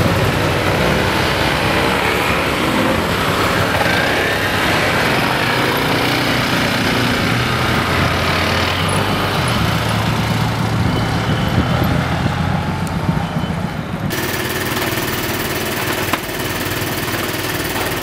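Several small motor scooter engines running and revving as a group of scooters pulls away and rides off, their pitch rising and falling. About fourteen seconds in it cuts suddenly to a single scooter engine running steadily at idle.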